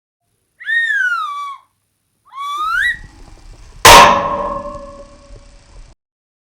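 Cartoon sound effects: a whistle-like tone that swoops up and then slides down, then a second one that rises. Next comes a loud clanging crash that rings and fades away over about two seconds.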